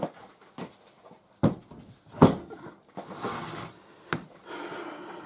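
Clunks and knocks of metal parts being handled on a workbench as a lump of steel is set down and a bearing on its shaft is placed on it. The loudest knock comes about two seconds in, with rubbing and sliding sounds between the knocks.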